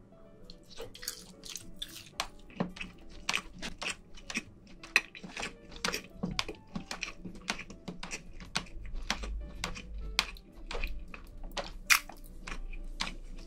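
Close-miked wet chewing of cooked fish roe from a spicy seafood stew: an irregular, continuous run of small moist clicks and smacks from the mouth.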